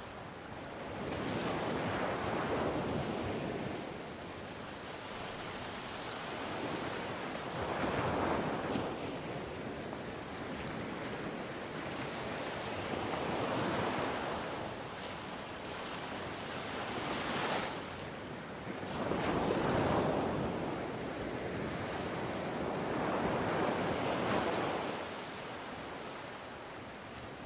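Ocean waves breaking and washing ashore. The surf swells and fades about every four to six seconds over a steady hiss of water.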